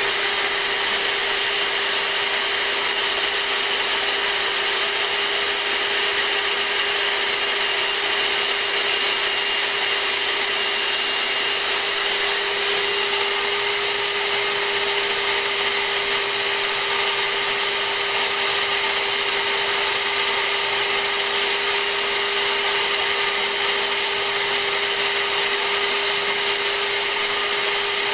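CNC router spindle running steadily while milling acrylic, with a steady hum and higher whine over a rush of noise from the shop vacuum and the compressed-air jet at the bit.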